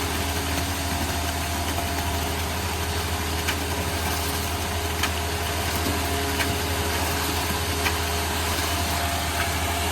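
Concrete mixer truck's diesel engine running steadily with a deep, even hum, with a few faint clicks or taps every second or so.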